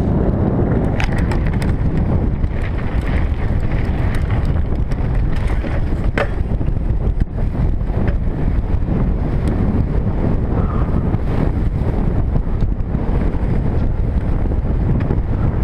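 Wind buffeting an action camera's microphone on a mountain bike riding fast downhill over grass, with steady tyre rumble and the bike clicking and rattling over bumps; one sharp clack about six seconds in.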